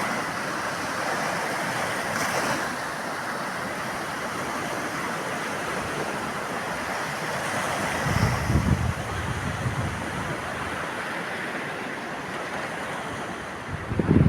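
Steady rush of sea surf and wind, with wind buffeting the microphone about eight seconds in and again near the end.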